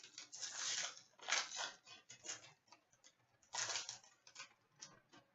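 A hockey trading-card pack being torn open and its cards handled: irregular crinkling and rustling in short bursts with brief pauses between them.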